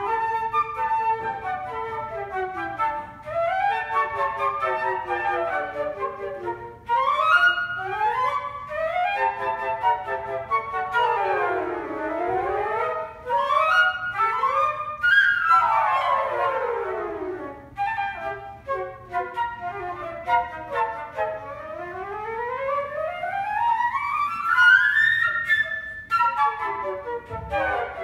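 Flute quartet playing, with fast scale runs sweeping up and down and overlapping between the parts.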